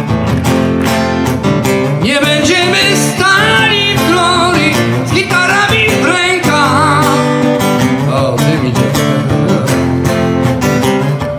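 Live music: an acoustic guitar strummed steadily, with a man singing high, wavering notes from about two seconds in to about seven seconds in.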